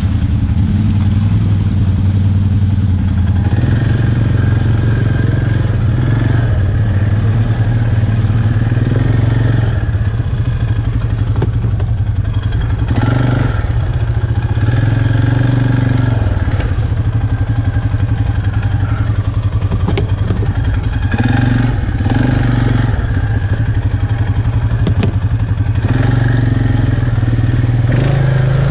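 ATV engine running as the quad is ridden through mud and water, its speed rising and falling with the throttle, with a few knocks from the rough trail.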